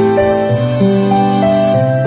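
Soft, slow background music: a melody of held notes that steps from note to note over a sustained low bass.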